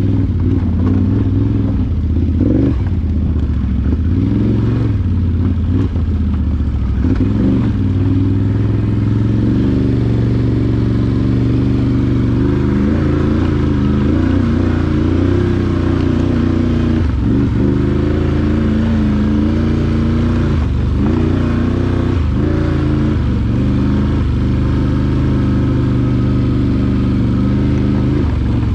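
ATV engine running under way on a trail, its pitch rising and falling with the throttle, with a few brief knocks.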